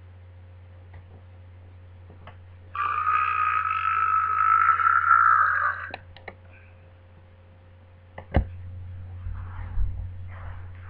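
A long, croaky burp lasting about three seconds, starting a few seconds in. A sharp click follows near the end, then some low rustling.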